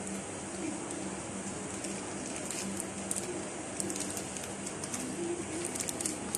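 Plastic wrap and butter paper rustling and crackling in short bursts as fingers tie a satin ribbon around a wrapped roll, over a steady low room hum.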